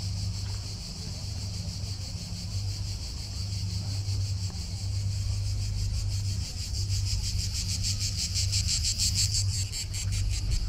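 A shrill insect chorus buzzing with a rapid pulse, swelling louder near the end.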